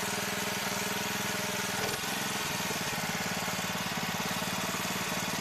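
An engine idling steadily with an even, fast chugging pulse.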